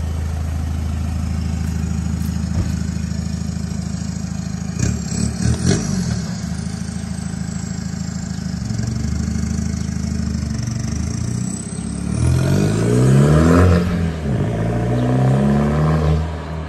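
Volkswagen Jetta SportWagen TDI diesel running through a large-bore exhaust, revved briefly a few seconds in. About twelve seconds in it pulls away hard, the engine note rising, dropping at a gear change and rising again as it rolls coal.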